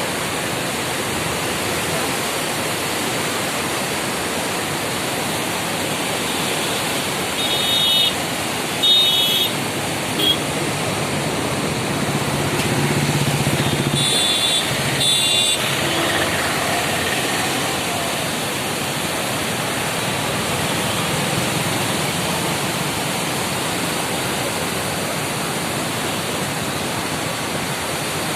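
Krishna river in flood, a steady rush of fast-flowing water. Twice, short high-pitched tones sound briefly over it, about 8 seconds in and again about 14 seconds in.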